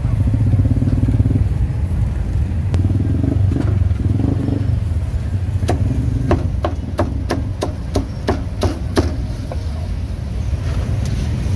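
A cleaver chopping on a chopping block in a quick run of about ten strokes, roughly three a second, from about six to nine seconds in, with a few more chops near the end. Under it runs the steady low rumble of street traffic engines.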